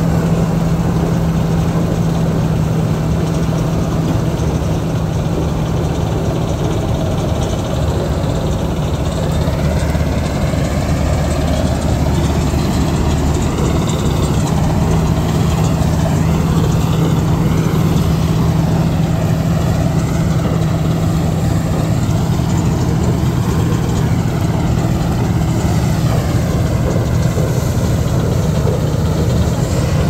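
Kartar 4000 combine harvester running steadily in a soybean field: a constant heavy engine hum with the threshing machinery going, and a fainter higher whine that wavers up and down in pitch through the middle.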